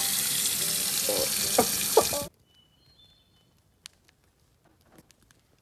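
Water from a kitchen faucet running steadily into a sink over a gutted trout being rinsed, stopping abruptly a little over two seconds in. Then near quiet with a few faint clicks.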